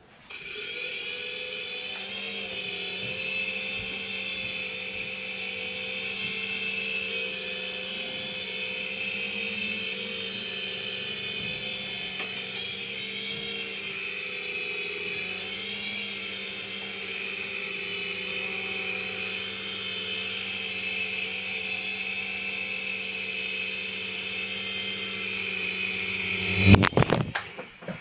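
Three-channel micro RC helicopter in flight: its small electric motors and rotors make a steady high whine that wavers slightly in pitch. Near the end there is a brief clattering crash as it flies into something, and the whine stops.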